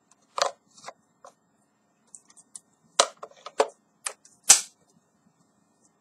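Sharp plastic clicks and knocks as the filter and dust container are fitted onto the body of a handheld 12 V wet & dry car vacuum. They come as a few knocks early on, then a quick cluster, with the loudest about four and a half seconds in. The motor is not running.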